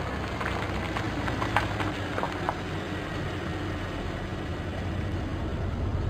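Car driving slowly up and pulling in, its engine running low and steady, with a few light ticks in the first couple of seconds.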